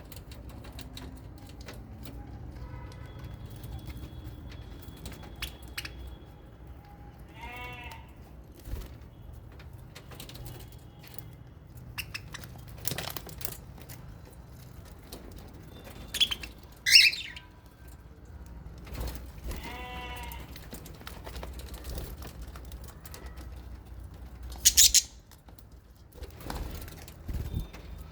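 Aviary birds calling: two short, loud, shrill calls, one about halfway through and one near the end, and two lower, drawn-out wavering calls earlier, over scattered clicks and rustling from birds moving about.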